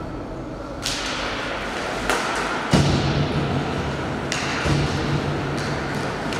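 Ice hockey play on the rink: skates scraping the ice and a few sharp hits of sticks and puck, the loudest a thump nearly three seconds in.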